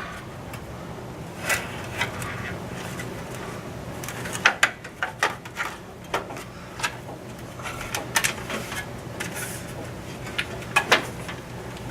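Scattered clicks, taps and clatters of car trim parts and small hardware being handled and pulled apart, heaviest around the middle and near the end, over a steady low hum.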